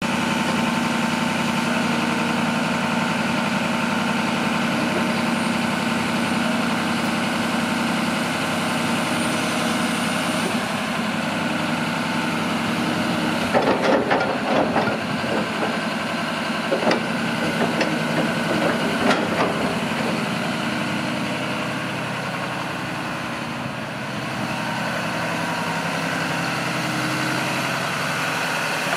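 John Deere 290G LC excavator's diesel engine running steadily as the boom, arm and bucket move and the upper structure swings. Around the middle comes a run of clanks and knocks, and a little later the engine sound dips briefly and picks back up.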